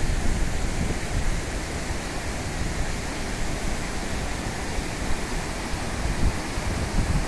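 Jaldhaka River rushing over rocks in shallow rapids: a steady, even hiss of running water, with a low rumble of wind on the microphone that grows a little stronger near the end.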